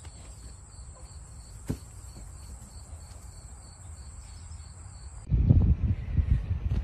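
Insects droning steadily at a high pitch in a grassy yard. About five seconds in, the drone cuts off and a loud, low, rumbling noise takes over.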